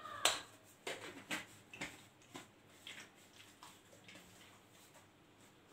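A string of short, sharp clicks and knocks, the loudest a fraction of a second in, then about ten softer ones spaced roughly half a second apart over the next few seconds.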